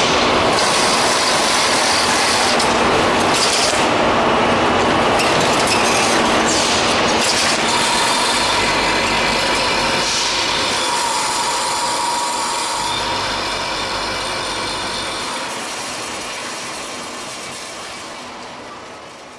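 Automatic carton packaging line machinery running steadily, with conveyors and a carton sealer at work; a few sharp clicks come in the first few seconds, and the whole sound fades out toward the end.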